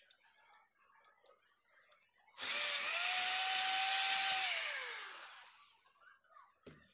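Corded electric drill starting suddenly about two and a half seconds in and running for about two seconds as it bores into an iron pipe, with a steady motor whine. The motor then winds down, its whine falling in pitch until it stops.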